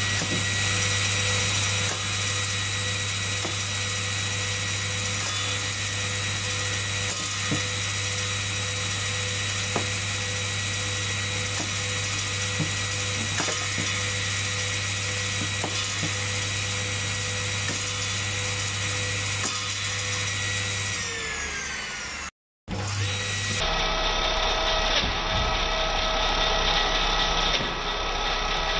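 Electric circular saw running with a steady motor whine, with a few faint ticks. Late on, its pitch falls as it slows, the sound cuts out briefly, and then the saw runs on steadily again.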